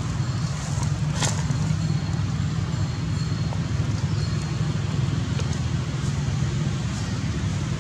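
A steady low rumble of background noise, with one short sharp click about a second in.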